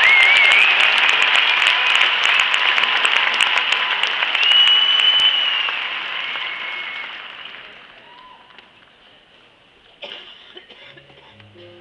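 Large arena crowd applauding, with a few whistles over it, dying away about six to eight seconds in. A few knocks follow, then music begins right at the end.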